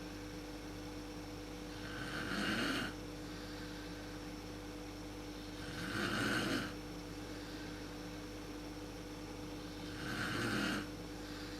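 A sleeping woman snoring: three snores about four seconds apart, each swelling and then cutting off sharply, over a steady background hum.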